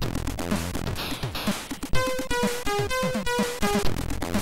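Commodore 64 SID-chip music: an electronic chiptune with short noisy drum hits, quick falling pitch sweeps in the bass, and a melody of short held notes that comes in about halfway.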